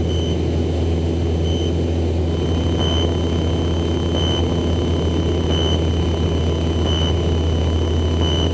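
Light aircraft's engine and propeller droning steadily, heard inside the cockpit, with a high tone pulsing about once every second and a half over it.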